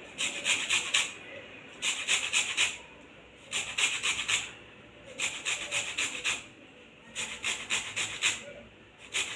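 Green lemon being zested on a hand grater: quick scraping strokes come in bursts of several strokes, each burst lasting about a second, with short pauses in between.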